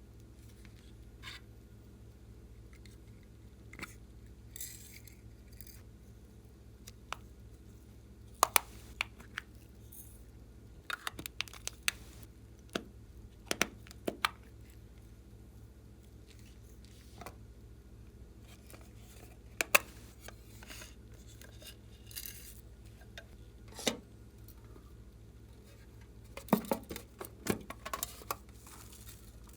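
Irregular sharp clicks, taps and light clinks of small hard objects and containers being handled and set down, some loud, over a steady low hum.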